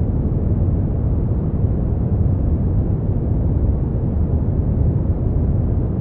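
Steady synthetic brown noise, an even rumbling hiss heaviest in the bass and fading toward the treble, unchanging throughout.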